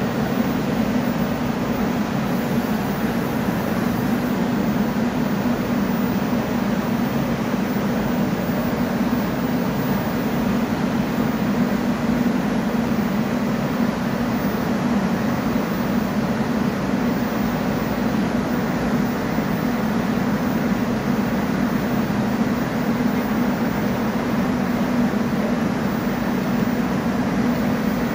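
Steady low hum of a Korail Class 341000 electric commuter train standing at the platform, with no distinct events.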